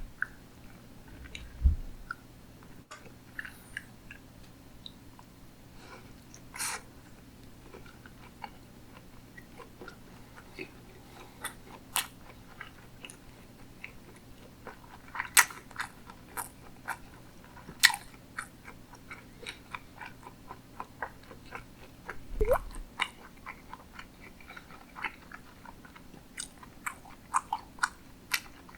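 Close-miked chewing of sushi, with many short wet mouth clicks and smacks. Two dull low thumps come at about 2 seconds and about 22 seconds in, and a faint steady hum runs underneath.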